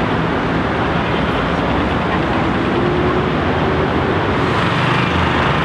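Steady traffic noise from a busy multi-lane city street: cars and buses passing in a continuous, even rush of engines and tyres.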